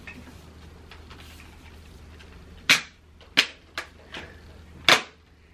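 Sharp plastic clicks and snaps from a cordless stick vacuum's body and clear bin as it is handled and its bin-emptying latch is tried out: four short clicks over a couple of seconds, over a low steady hum.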